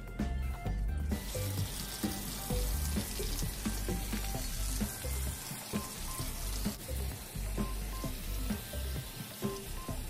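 Hiss of water from a garden hose spray nozzle hitting an air conditioner's condenser coils, starting about a second in, as the coil cleaner is rinsed off. Background music with a steady beat plays throughout.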